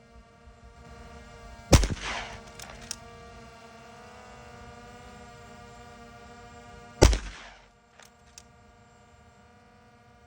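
An AEA PCP air rifle firing slugs: two sharp shots about five seconds apart, each followed by a couple of faint ticks. Steady background music underneath.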